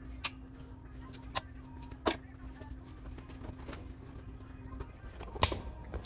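Scattered light clicks and knocks of hands and a screwdriver handling parts inside an open ATM cabinet, with a louder knock near the end, over a steady low hum that stops shortly before the end.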